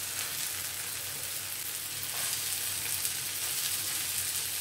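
Tomato-onion masala sizzling gently in a non-stick frying pan on low heat as raw sea bass pieces are laid into it, a steady hiss.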